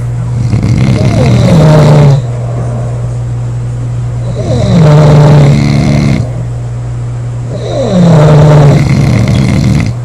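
Loud snoring: three long, buzzing snores about every three seconds, each dipping in pitch as it starts, over a steady low hum.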